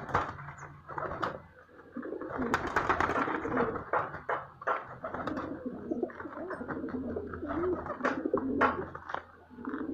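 Domestic pigeons cooing repeatedly, with sharp flutters of wings from a pigeon flapping in the hand.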